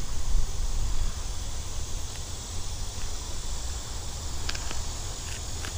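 Steady outdoor background: a low rumble and an even high hiss, with a few faint clicks near the end.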